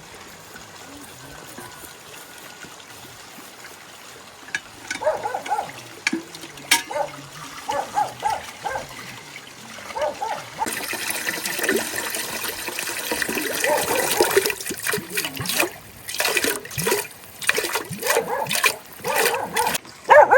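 Water running or pouring for about five seconds from roughly halfway through. Around it comes a run of short high yips and whimpers from a dog.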